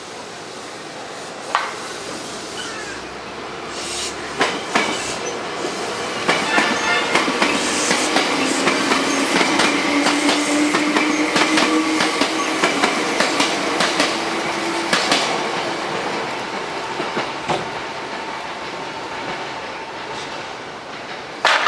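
A train passing close by, wheels clattering over the rail joints. It builds to its loudest in the middle and fades toward the end.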